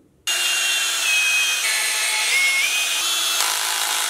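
Cordless drill running under load, driving screws into laminated MDF. Its motor whine dips and recovers in pitch a few times as the load changes.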